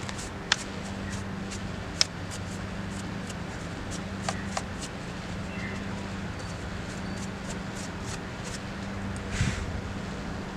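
Scattered sharp clicks and light handling rattles over a steady low hum.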